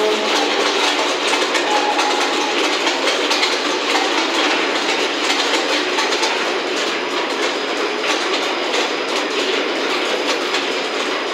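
Skyrail rope-driven suspended transit car running, heard from inside the cabin: a steady rattling noise with a rapid, uneven patter of clicks.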